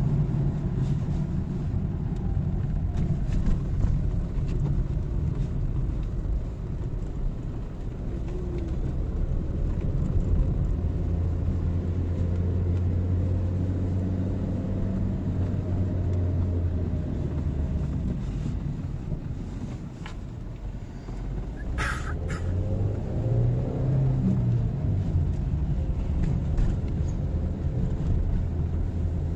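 Car running along the road, a steady low rumble whose engine note holds, drops off a little before twenty seconds in, then climbs again. A sharp click a little past twenty seconds in.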